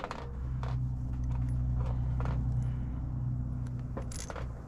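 A low, steady motor drone starts right at the beginning and holds, easing off near the end. Over it come light scattered clicks and taps of metal hardware being handled on a solar racking rail.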